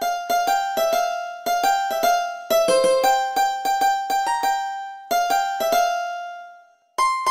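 Sitar playing a melody in quick plucked notes, each ringing and fading away. The playing pauses briefly near the end, then starts again.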